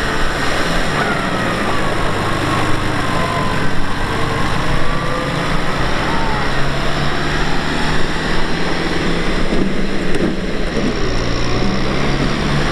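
Kubota M6040SU tractor's diesel engine running steadily under way, its engine note shifting up and down a few times.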